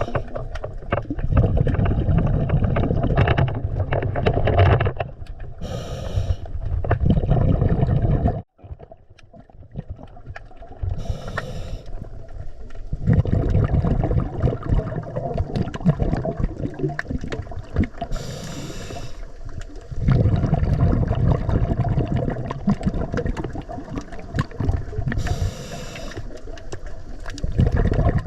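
Scuba diver breathing through a regulator underwater: a short hissing inhale four times, about every six to seven seconds, each followed by several seconds of bubbling exhaled air.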